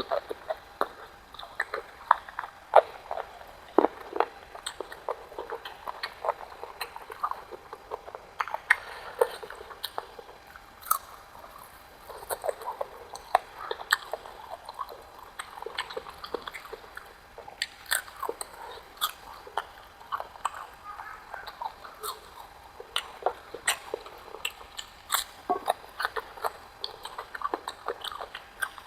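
Close-up chewing and biting of spicy chicken kebab: wet mouth smacks and small crunches in an irregular stream of sharp clicks.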